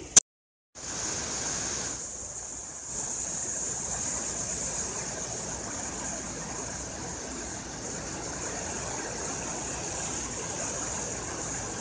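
Water rushing steadily down a sloping rock face below a dam outlet, as a continuous cascade. A sharp click and a brief gap of silence come right at the start.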